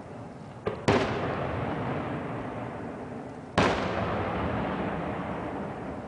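Fireworks going off: a small bang about a second in, then at once a loud boom, and another loud boom a little past halfway, each one echoing away slowly.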